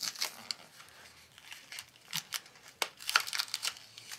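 Small plastic bead packet crinkling and tearing as it is worked open by hand, with scattered small clicks and crackles.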